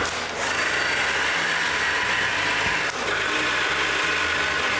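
Handheld power drill boring holes into the hardwood top of a tool rack, its motor running steadily under load with two short breaks, one near the start and one about three seconds in.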